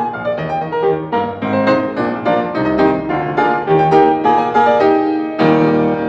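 Background piano music: a quick run of notes, ending near the end on a full chord that is held and rings on.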